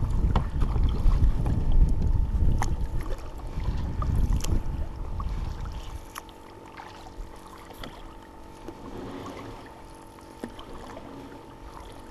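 Canoe being paddled, with paddle strokes in the water and a few light knocks. Wind rumbles on the camera microphone and eases off about halfway.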